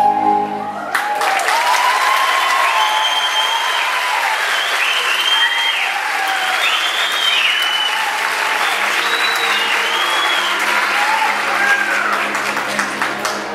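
Audience applauding, breaking out about a second in as the music ends and holding steady, with cheering voices rising and falling above the clapping.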